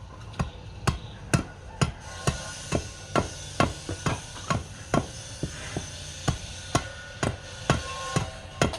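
Regular sharp knocks, a little over two a second, like hammer or mallet blows, over a steady machine hum and hiss that grows louder about two seconds in.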